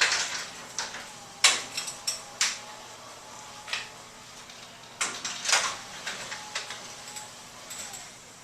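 Motorized garage screen door lowering along its track, with a faint steady motor hum and a series of sharp clacks and rattles, the loudest about a second and a half in and again around five seconds in.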